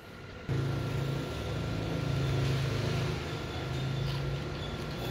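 Ryobi 14.4 V cordless drill motor switched on about half a second in and running steadily. The drill is powered through clip leads on its battery-shell contacts for a function test.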